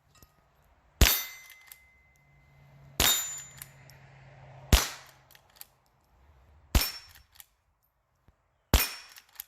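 Henry H001 lever-action .22 rimfire rifle fired five times, about two seconds apart. The first hits leave steel targets ringing briefly, and small clicks of the lever being worked fall between shots.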